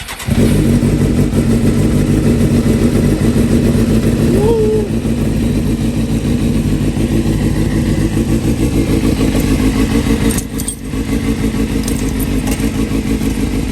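Suzuki GSX-R750 inline-four motorcycle engine running loud and steady on its first start after a repair. It drops briefly about ten and a half seconds in.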